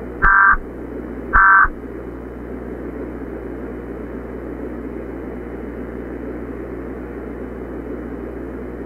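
Two short bursts of Emergency Alert System data tones, about a second apart: the end-of-message code that closes an EAS alert. Steady static hiss follows.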